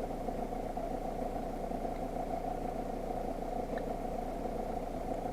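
A steady, unchanging mechanical drone, like an idling engine, with a couple of faint ticks.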